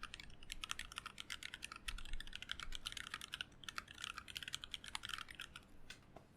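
Fast typing on a mechanical keyboard with heavy 78g factory-lubed Seal linear switches in a hotswap board with a brass plate and blank ABS keycaps, a dense run of key clacks. The keystrokes thin out to a few single presses about five seconds in and stop near the end.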